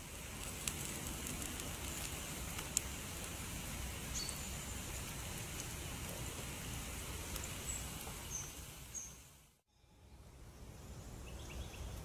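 Outdoor woodland ambience: a steady hiss with a few sharp clicks and several short, high bird chirps. The sound drops out briefly near the end, then the hiss and chirps come back.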